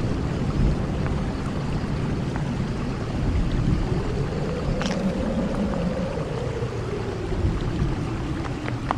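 Horror ambience sound effect: a low, steady rumble with a faint moaning tone that slowly rises and falls once in the middle, over scattered small clicks or drips.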